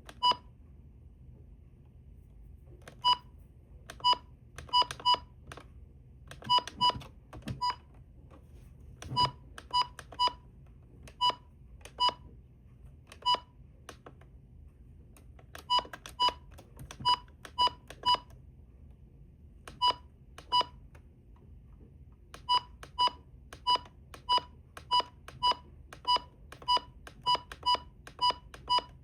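Key-press beeps of a Maxx Digital weather radio: about forty short, identical high beeps, one for each button press as the menu settings are stepped through. They come at uneven intervals, some singly and some in quick runs of several.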